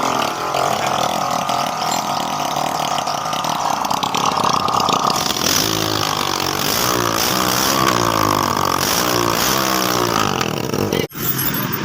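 Restored 70 cc motorcycle engine running, steady at first, then rising and falling in pitch over and over from about halfway through as it is revved.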